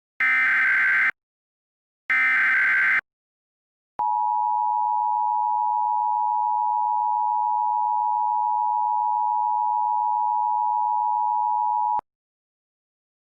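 Emergency Alert System SAME header: the last two of three short bursts of data tones, about a second apart. After a one-second gap comes the EAS attention signal, a steady tone held for about eight seconds before cutting off abruptly.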